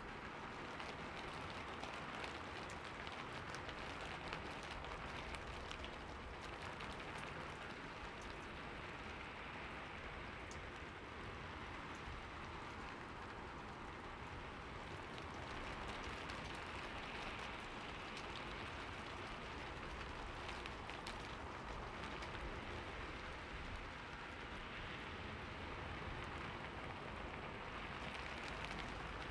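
Steady rainfall, a continuous even hiss of rain on a surface with faint scattered drop ticks.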